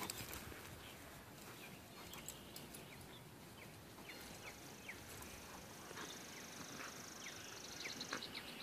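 Quiet outdoor ambience with scattered short bird chirps and a rapid, high trill that starts about halfway through and stops near the end. There are a few faint scuffles at the start from the coyote and Labrador wrestling on the grass.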